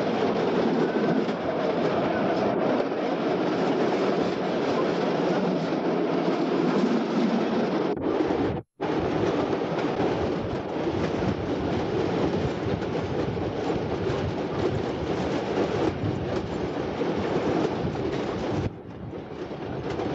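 Tram running on its rails: a steady noise of wheels on track. The sound cuts out briefly about nine seconds in and is quieter near the end.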